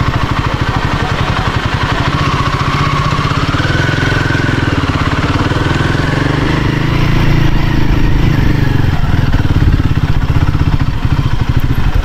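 Royal Enfield Himalayan 450 motorcycle engine running on the ride, its pitch rising about a third of the way in and easing back down after the middle.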